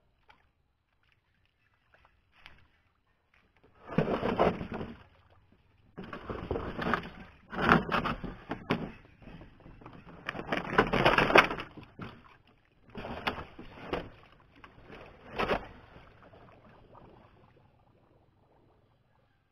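Bamboo raft being moved through shallow water, with repeated bursts of splashing water, each about a second long, the loudest around the middle.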